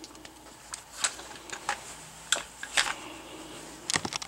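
Scattered light clicks and rustles of a Magpul MS3 rifle sling's nylon webbing and metal clip being handled, with a few sharper clicks about a second in and near the end.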